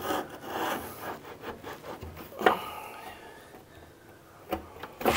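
Old wooden door being handled at its latch: wood rubbing and scraping with small clicks, and a sharper knock about two and a half seconds in, followed by a faint creak, then another knock near the end.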